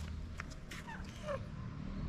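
A street cat gives a short meow about a second in, falling in pitch, over a steady low hum.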